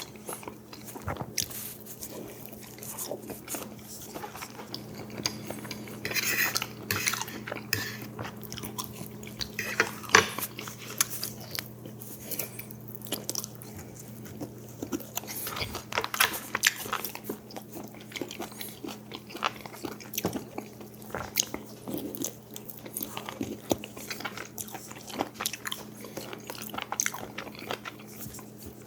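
Close-miked eating: irregular biting, chewing and crunching, with occasional clicks of utensils or dishes over a faint steady hum.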